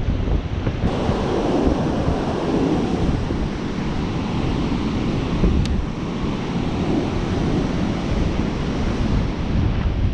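Strong wind buffeting the microphone in heavy, steady gusts over ocean surf breaking on the shore.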